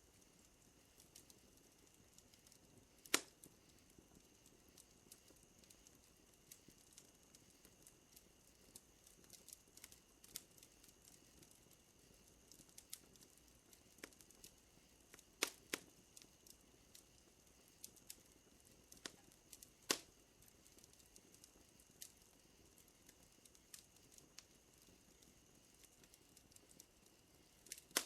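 Wood fire crackling softly with scattered small ticks and a few louder sharp pops, about four, over a faint steady high-pitched insect chirr.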